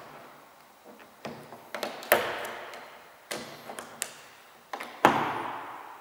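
About eight sharp clicks and knocks of a plastic trim removal tool levering against a 2015 Hyundai Tucson's chrome exterior door handle to pop off its end cover, each with a short decaying ring; the loudest come about two and five seconds in.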